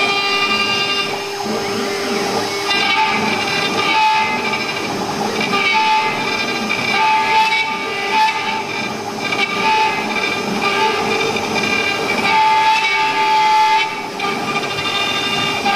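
CNC router spindle whining at high speed as a V-shaped engraving bit cuts grooves into MDF, with the cutting noise rising and falling as the bit moves through the board. A higher tone comes and goes every second or two as the machine moves.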